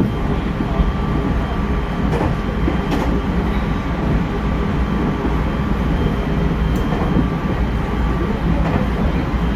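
Hokuetsu Express HK100-series electric train running at speed, heard from inside the front of the car: a steady rumble of wheels on rail with a faint steady whine. A couple of sharp clicks, about two and three seconds in, come as the wheels pass over rail joints.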